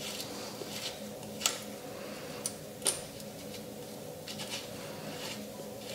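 Light metallic clicks and taps of a hex wrench and a Shimano Sora rear derailleur as the derailleur is unbolted from a steel bike frame, a few separate clicks with the sharpest about a second and a half in, over a steady faint hum.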